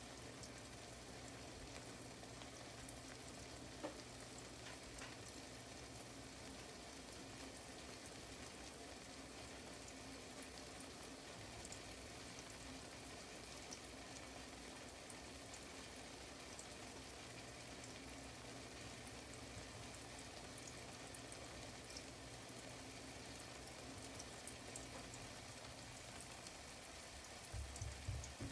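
Egg pancake with onion and bell pepper frying in a nonstick pan: a faint, steady sizzle with fine crackles. A few low thumps come near the end.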